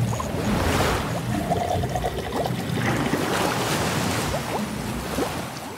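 Watery sound-effect design of bubbling and trickling liquid, with many short rising bubble blips over a steady rush.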